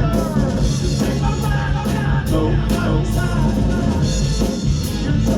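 Loud live rock music: a drum kit beats about twice a second under distorted instruments, with a voice singing in places.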